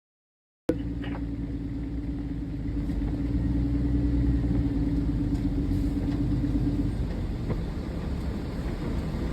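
After a brief dead cut in the audio, a moving vehicle's steady low rumble, with a steady hum that stops about seven seconds in.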